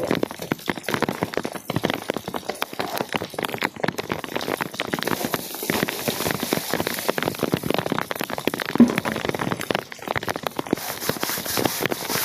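Rain falling, a dense irregular patter of drops, with a higher hiss that comes in about five seconds in and again near the end.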